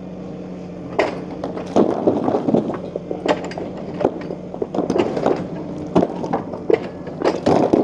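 A barn's timber structure being torn down by machine: wood cracking and splintering, with a string of irregular crashes and knocks of falling debris over a machine's steady engine hum.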